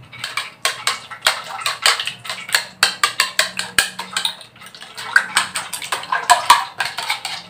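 Metal spoon beating raw eggs in a ceramic bowl, clinking against the bowl's side in quick, uneven strokes of several a second.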